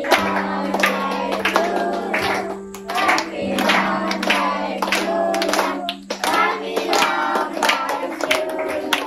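A group of children singing together while clapping a steady beat, with a steady held musical tone underneath.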